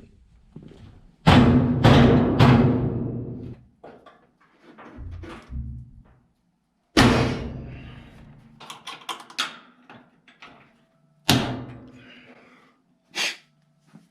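Heavy thunks from a washing machine's sheet-metal cabinet being handled and put back together, each ringing on briefly, with lighter clicks and rattles between them. There are three hits close together in the first few seconds, another about seven seconds in, and one about eleven seconds in.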